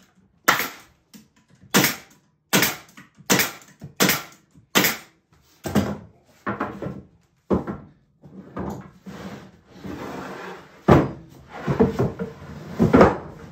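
Pneumatic stapler driving staples into the finger-jointed corners of a wooden beehive box: a run of sharp shots about three-quarters of a second apart, fading into softer knocks. Near the end, loud wooden thumps as the box is handled on the bench.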